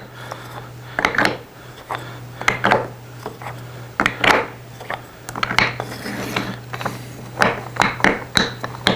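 Steel 1/4-inch drive sockets clinking against each other and sliding and scraping into drilled holes in a wooden holder as they are test-fitted: a run of irregular clicks and rubs. A steady low hum runs underneath.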